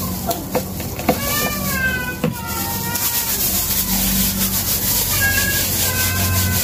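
A cat meowing: a string of short, slightly falling calls, over a steady low hum, with a few light taps in the first couple of seconds.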